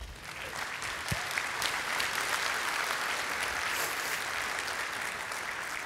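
An audience applauding: dense, steady clapping from many hands that starts at once and holds level throughout.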